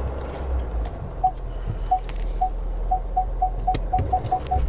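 Ford Super Duty pickup's reverse parking-sensor beeps as the truck backs toward the trailer. The beeps start about a second in, one every half second, and speed up to about four a second as the gap closes. Under them is the low rumble of the running truck, with a few small clicks.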